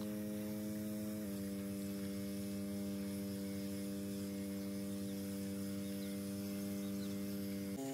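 Small 139F four-stroke engine of a portable power sprayer running steadily, a constant hum whose pitch drops slightly about a second in.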